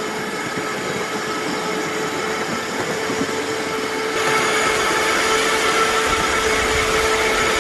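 Ride-on miniature railway work train running along the track: a steady whine over continuous rolling noise, getting louder and rumblier about four seconds in.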